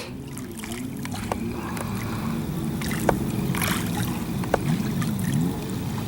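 Engine of a personal watercraft running out on the pond, a steady low drone whose pitch slowly swells and dips as it moves.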